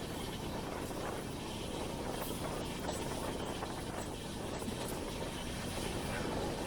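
Steady running noise of an express passenger train travelling at speed, heard from on board the coach, with a few faint ticks and clicks.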